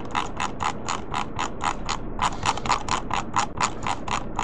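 Rapid, even clicking from computer controls as a 3D CT model is turned on screen, about five clicks a second with a brief pause near the middle.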